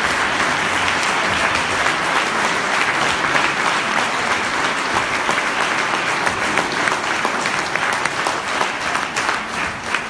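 Audience applauding, a dense clapping that thins out into more separate claps near the end.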